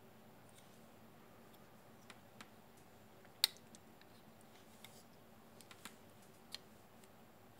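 Small rocker switches on a USB hub's circuit board clicking as they are flipped: a few sparse, quiet clicks, with one sharper click about three and a half seconds in. These are switches that the owner suspects of loose contacts.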